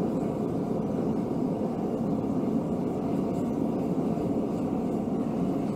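Mr. Volcano propane forge burner running with a steady, even rushing noise, its regulator turned up to about 20 PSI for maximum heat.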